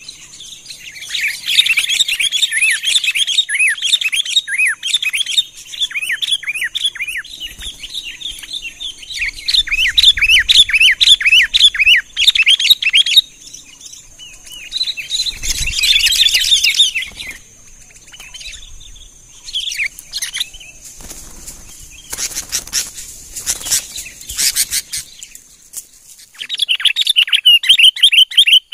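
Sooty-headed bulbuls (kutilang) calling in long runs of rapid, sharp chirps, several a second, broken in the middle by short noisy flutters.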